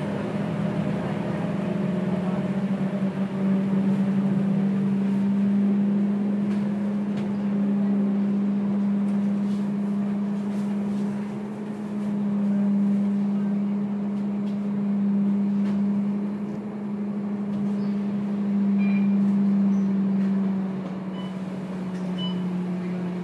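Scania K230UB city bus's nine-litre five-cylinder diesel and drivetrain, heard from inside the passenger cabin while under way: a steady low drone that swells and eases in loudness several times.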